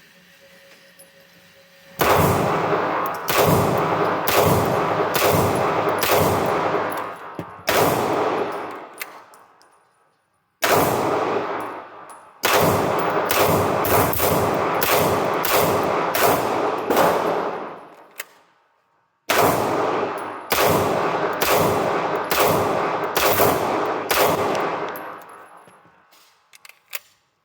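SIG Sauer P226-X Legion SAO pistol firing three strings of rapid follow-up shots, roughly one to two shots a second, with a short pause between strings. Each shot trails off in a long echo.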